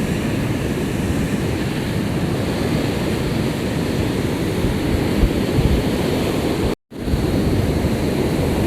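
Sea surf breaking and washing on a beach, a steady rushing sound, with wind buffeting the microphone. The sound cuts out for an instant about two-thirds of the way through.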